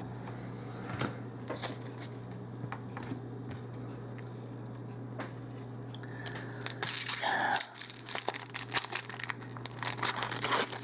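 A few faint clicks, then about two-thirds in the loud crinkling and tearing of a Magic: The Gathering booster pack's foil wrapper being ripped open, over a low steady hum.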